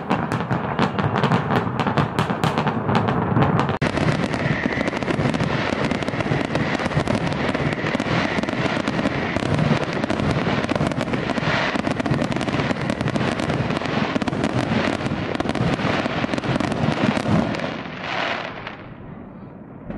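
Aerial fireworks display: a dense, continuous barrage of crackling and popping shell bursts, with a brief break about four seconds in, dying down near the end.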